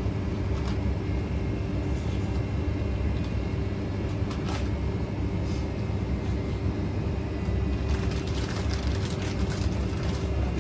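Steady low rumble of ambient background noise with a constant low hum, and a few faint light clicks about halfway through and near the end.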